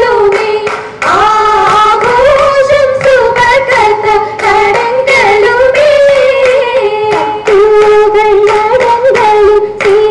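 Group of girls singing a Mappila song in unison for an Oppana dance, with steady rhythmic hand claps keeping the beat.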